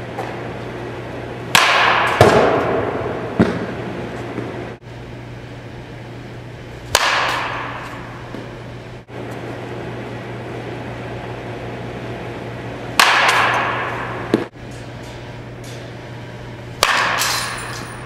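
Four batting-practice hits with a metal baseball bat, each a sharp crack that trails off in the room's echo, with a few lighter knocks after two of them. A steady low hum runs underneath.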